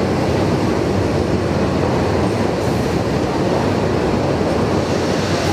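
Pyongyang Metro train pulling in alongside the underground platform: a steady, loud rumble of the carriages rolling on the rails.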